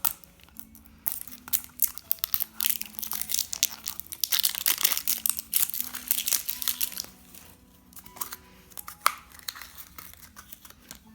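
Plastic packaging crinkling and tearing as a toy wrapper is ripped open by hand, densest in the middle with many sharp crackles.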